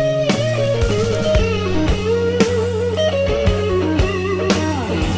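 Background music: electric guitar playing bending, vibrato-laden lead lines over a bass line and a steady drum beat, in a blues-rock style.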